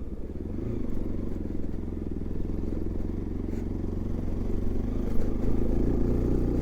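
Bajaj Pulsar NS200 motorcycle engine running steadily under way, slowly getting a little louder, with a faint knock about three and a half seconds in.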